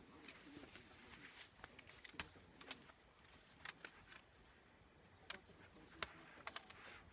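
Scattered light clicks and taps, about a dozen at irregular intervals, from a laptop and small tools being handled during disassembly.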